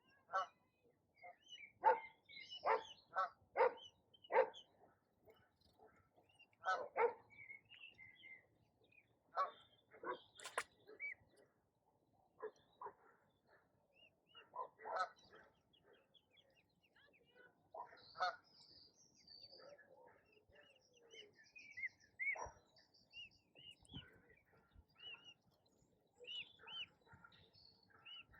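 Ducks quacking: a quick run of about five loud quacks in the first few seconds, then scattered single quacks. Small birds chirp through the last third.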